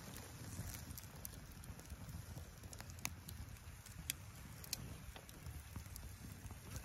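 Wind rumbling in the valley, with scattered sharp crackles and clicks, about one every second.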